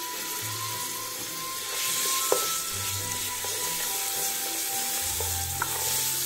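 Homemade seasoning paste sizzling in hot oil in an aluminium pan while a wooden spoon stirs it. The sizzle grows louder about two seconds in as the paste starts to brown.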